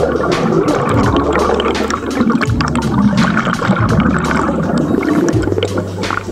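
Underwater scuba bubbles: a diver's exhaled air bubbling and gurgling past the camera, with many small pops and a low hum that stops and starts.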